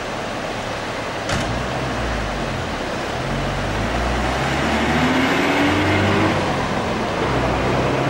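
Whitewater rapids rushing steadily, a loud, even roar of foaming water. A low rumble comes and goes underneath, and there is a single knock about a second in.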